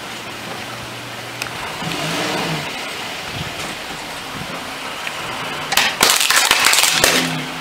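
Car engine running as the car creeps forward, then, about six seconds in, a toy guitar cracking and crunching loudly as the tyre rolls over and crushes it.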